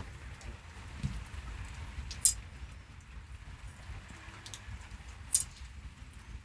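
Two short, sharp clicks or knocks about three seconds apart over a steady low rumble.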